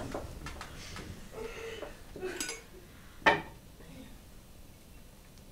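A few light clicks and one sharp clink of a china cup and saucer about three seconds in.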